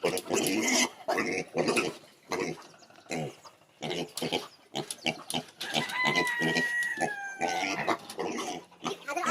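Pigs grunting and eating their feed, in short irregular bursts, with one longer, higher-pitched cry that falls slightly about six seconds in.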